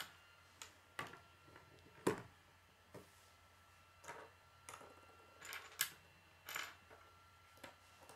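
Plastic K'nex rods and connectors clicking and knocking against each other and the wooden tabletop as they are handled and snapped into place: scattered, irregular sharp clicks, the loudest about two seconds in.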